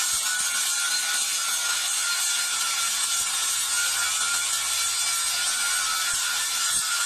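Steady rasping hiss of a tool working on a car wheel's rim, with no pauses.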